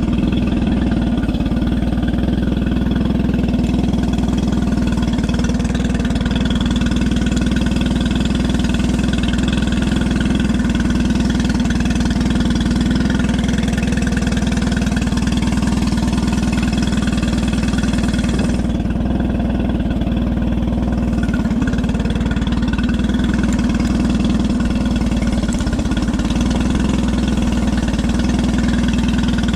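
Outboard engine idling steadily during its after-service test run.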